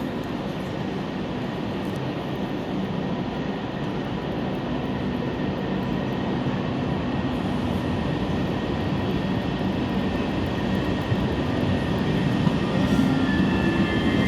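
A train moving through the station, a steady rolling rumble that grows slowly louder, with thin high squealing tones coming in near the end.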